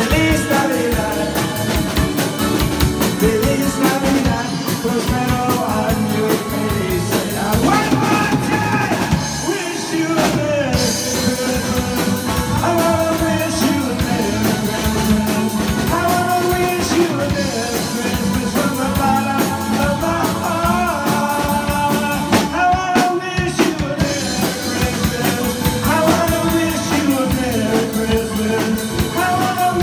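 A pop-rock song: male voices singing over a band with a drum kit keeping a steady beat.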